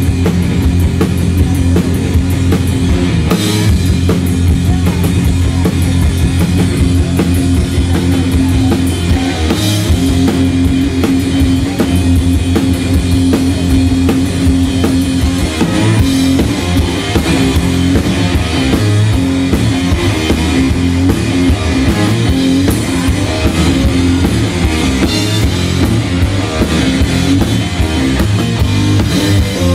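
Rock music played live by a duo on electric guitar and drum kit: a steady driving drum beat under sustained guitar chords, loud and unbroken throughout.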